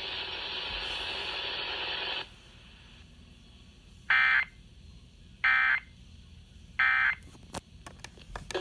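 A steady hiss for about two seconds, then three short, buzzy data bursts about 1.4 seconds apart. These are the Emergency Alert System end-of-message (EOM) tones heard over FM radio, marking the end of the alert message.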